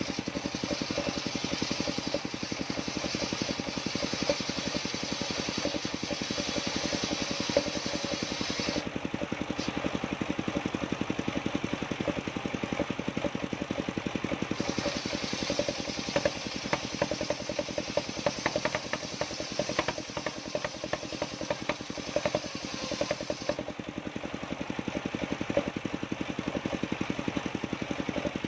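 An engine running steadily, with a rapid even pulse.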